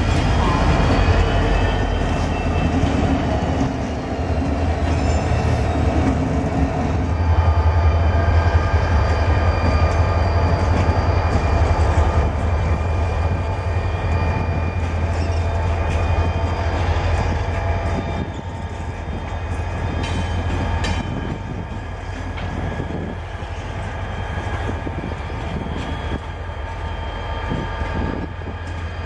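Diesel freight locomotives, first Soo Line units and then a blue-and-yellow ICE unit with a blue leased locomotive, moving slowly past. Their engines give a steady low drone, with a thin high squeal and some clatter from wheels and rails on top. The sound eases somewhat in the second half.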